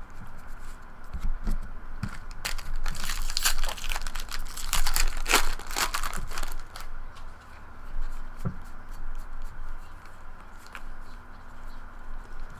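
Foil wrapper of a baseball card pack being torn open and crinkled, with cards shuffling and clicking. The crinkling is densest in the middle, then thins to scattered clicks near the end.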